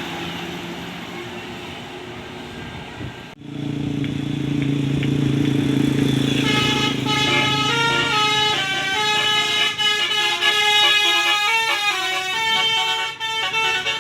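Traffic noise fading, then after an abrupt break a steady low drone. From about six seconds in, a tour bus's basuri 'telolet' musical horn plays a fast melody of quickly stepping tones.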